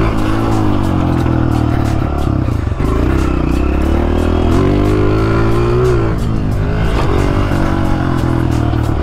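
Pit bike engine being ridden hard, its pitch rising and falling again and again as the throttle is opened and eased.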